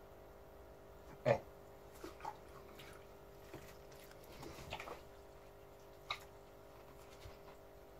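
Faint steady hum of an aquarium pump, with a few soft knocks and taps, the loudest about a second in.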